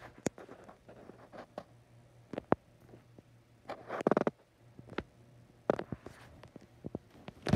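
Handling noise and fabric rustling: scattered light clicks and rustles, with a short low rumble about four seconds in.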